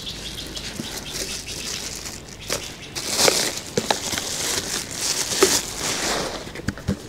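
Plastic bag rustling and crinkling as it is handled, loudest about halfway through, with scattered small clicks and knocks.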